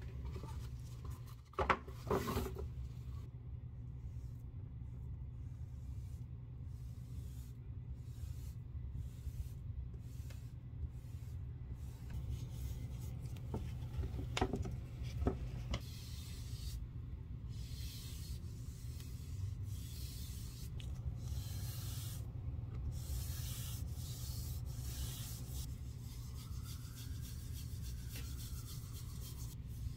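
Foam pad rubbing neatsfoot oil onto a strip of vachetta leather: soft, repeated swishing strokes that become denser in the second half. A few sharp clicks of the leather strip being handled come about two seconds in and again midway.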